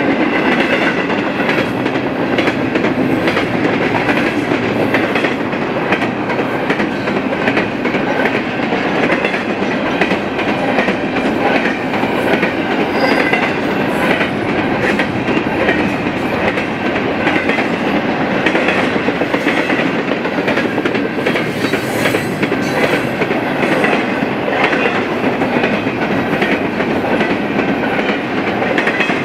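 Double-stack intermodal container cars rolling past: a steady rumble of steel wheels on rail with a continuous clickety-clack of wheels over the rail joints.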